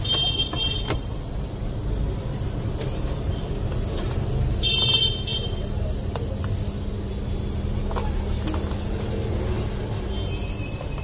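Steady street traffic rumble with a constant low hum, broken twice by short high-pitched horn toots: once at the start and again about five seconds in.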